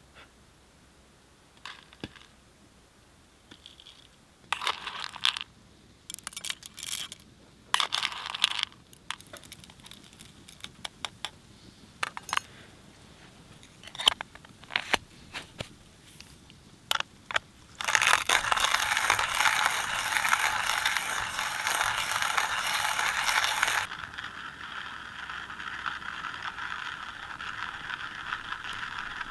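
Clicks, taps and short scrapes of a small metal canister being handled by hand. About two thirds of the way in, a loud steady rushing noise starts, runs for about six seconds, then drops to a quieter steady hiss.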